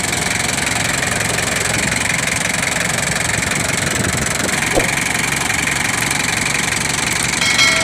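Diesel engine idling steadily. Near the end, a brief high tone sounds over it.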